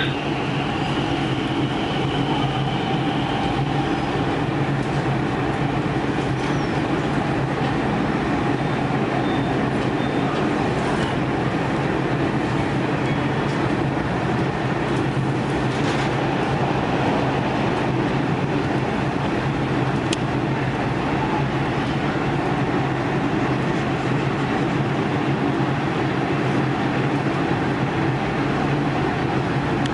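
Dubai Metro train running, heard from inside the car: a steady rumble of wheels and running gear with a constant motor hum, and a faint high whine in the first few seconds.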